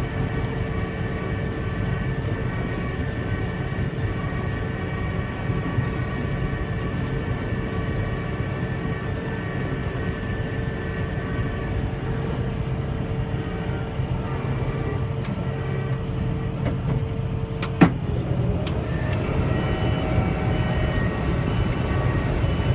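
Farm machinery running steadily under load: a deep engine drone with several steady whining tones over it. A single sharp click comes about 18 seconds in, and the whining tones shift just after it.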